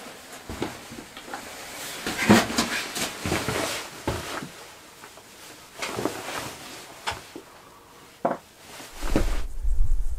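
A person moving about on the wooden floor of a small mountain hut: irregular footsteps, knocks and bumps against the boards and fittings, with a small-room sound. A low rumble starts near the end.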